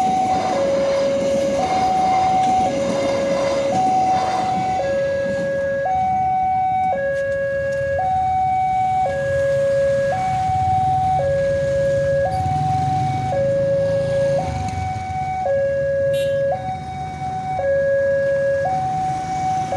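Railway level-crossing warning alarm sounding a two-tone electronic signal, switching between a higher and a lower tone about once a second. Train noise fades out over the first few seconds, leaving a low motor rumble beneath the alarm.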